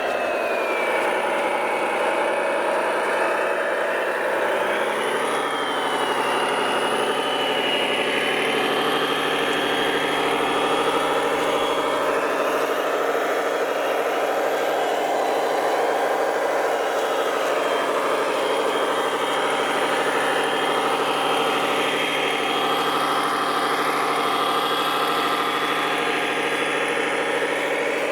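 Large radio-controlled truck running with a steady engine drone. A high whine rises and falls several times as the throttle changes.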